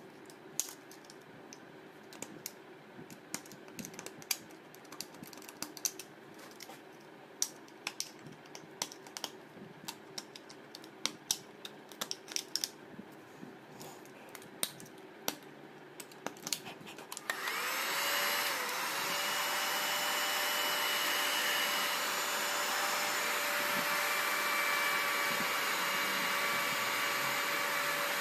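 Small metal clicks and scrapes of a flat-blade tool picking at the soldered slip ring joints of an alternator rotor. About 17 seconds in, a hot air gun switches on and runs steadily, a blowing noise with a steady whine, as it heats the slip ring joint.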